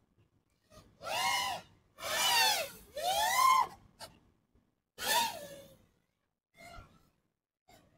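FPV mini quad's motors and propellers whining in short throttle pumps: four bursts, each rising and then falling in pitch, about a second apart with a longer gap before the last.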